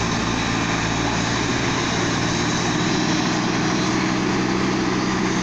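Diesel engines of a JCB backhoe loader and a Shantui wheel loader running as they dig and load soil, a steady drone.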